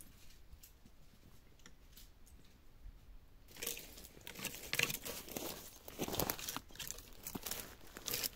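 Near quiet with a few faint clicks, then, about three and a half seconds in, irregular crunching and rustling footsteps through dry ground cover.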